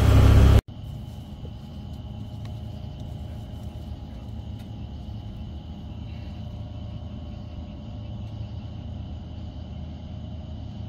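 A song ends abruptly just under a second in. What follows is steady outdoor ambience at a pond: a low, even rumble with a faint, continuous high-pitched tone above it.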